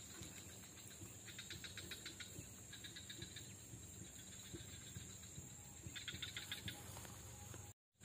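Faint swamp ambience with an insect chirping in rapid pulsed trills of about ten clicks a second, in three short bursts. The sound drops out completely for a moment just before the end.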